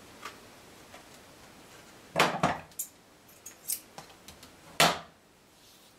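Craft tools and materials being handled on a tabletop: two sharp clatters, about two seconds in and near the end, with a few light clicks between.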